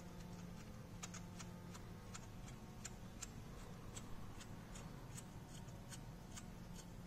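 Faint, light clicks, two or three a second and unevenly spaced, from hand-tool work on a car engine as a part is worked loose, over a low steady hum.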